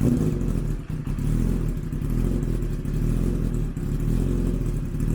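Kawasaki Ninja ZX-10R's inline-four engine idling steadily.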